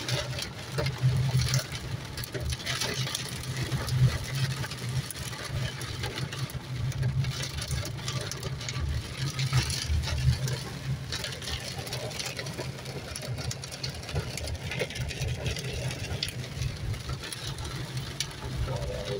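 Inside a car's cabin while driving through heavy rain: a steady engine hum, with rain pattering on the roof and windshield.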